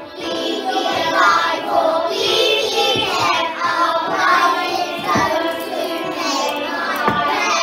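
A group of young children singing a song together in unison, with some clapping along.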